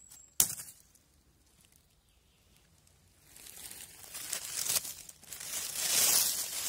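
A sharp click about half a second in. Then, from about three seconds in, dry fallen leaves rustle and crackle as a hand pushes them aside, growing louder toward the end.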